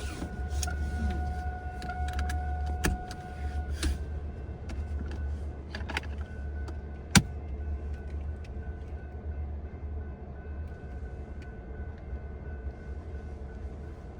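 Steady low motor-vehicle rumble with a faint steady whine, scattered small clicks and one sharp knock about seven seconds in.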